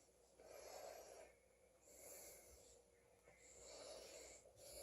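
Near silence, with three faint, soft breaths.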